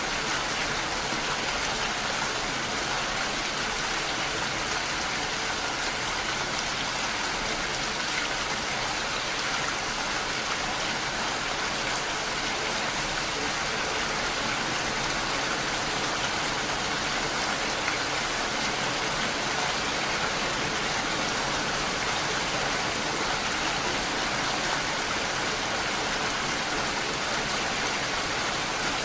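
Steady rain falling: an even, unbroken hiss of many drops.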